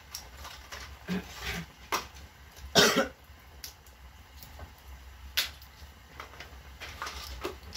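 Small clicks and crinkles of medicine packaging being opened and handled by hand. About three seconds in comes one louder, short burst.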